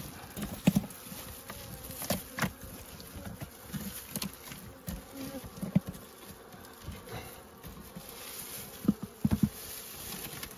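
Honeybees buzzing around an opened wooden hive box, with scattered knocks and scrapes as comb is cut out with a bamboo scraper.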